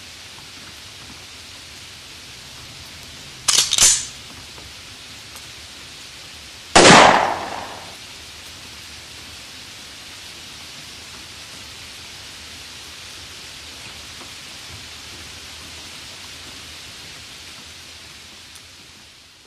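Steady rain hiss throughout. About three and a half seconds in, two quick sharp cracks; about three seconds later, a single louder gunshot with a trailing, falling rumble. The rain fades out near the end.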